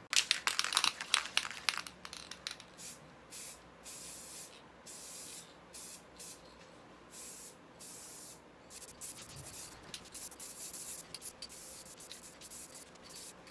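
Aerosol spray paint can: about two seconds of quick rattling at the start as the can is shaken, then short hissing bursts of spray, one after another with brief pauses.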